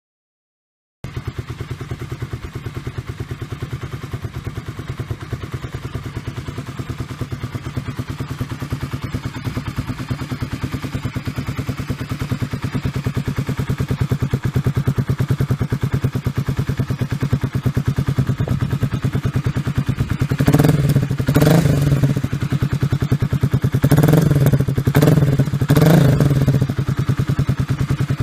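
Exhaust of a 2001 Kawasaki KLX250's single-cylinder four-stroke engine idling with a steady, even pulse through a White Brothers E-series megaphone muffler. In the last third the throttle is blipped a handful of times in quick, short revs.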